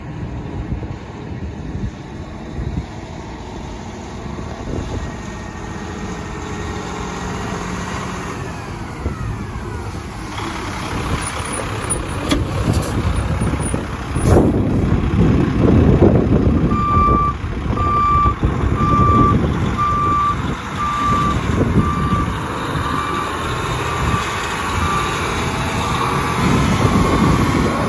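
Peterbilt 365 dump truck's diesel engine running as the truck drives up close, getting louder. About two-thirds of the way in, its reversing alarm starts beeping about once a second as it backs up.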